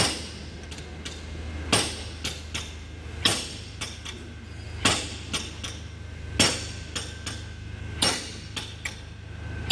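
Hammer blows on metal gearbox parts: a heavy strike about every one and a half seconds, with lighter taps in between.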